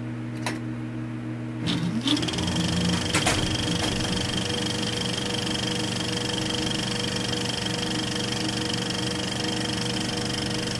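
Steady machine-like hum with several held high and low tones, the low hum shifting in pitch about two seconds in. A few sharp clicks sound in the first four seconds.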